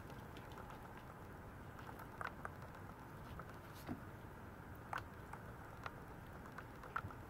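Faint, scattered light clicks and taps of a Maltese puppy's claws on a tiled floor as it moves about, over a low steady hiss.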